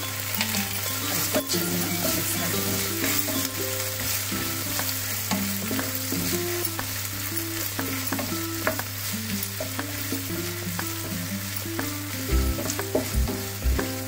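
Chopped onion and green capsicum sizzling in hot oil and sauce in a non-stick frying pan, stirred with a wooden spatula that scrapes across the pan. Several heavier low knocks come near the end.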